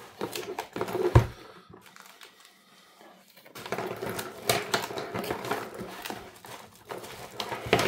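Handling of packaging: plastic wrapping crinkling and a cardboard box being handled, with many short clicks and a sharp thump about a second in. It goes quieter for a couple of seconds, then the rustling and clicking pick up again.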